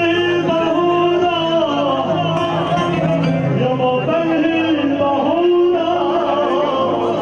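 Amplified Arabic wedding music: a singer holding long, wavering, ornamented notes over a steady instrumental backing.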